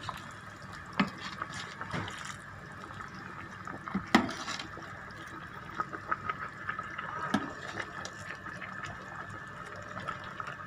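Chicken macaroni soup simmering and sloshing in a rice cooker's inner pot as a metal ladle stirs it. The ladle clinks against the pot now and then, most sharply about a second in and about four seconds in.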